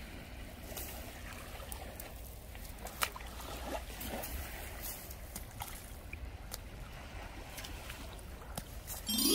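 Calm water lapping gently at a sandy shoreline, with low wind rumble on the microphone and a few faint ticks, one sharper about three seconds in. A rising swoosh starts right at the end.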